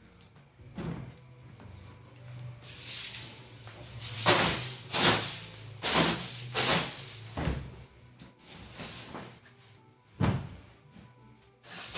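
Background music with about ten sharp, noisy knocks or bursts over it, some in quick pairs, the loudest about four seconds in.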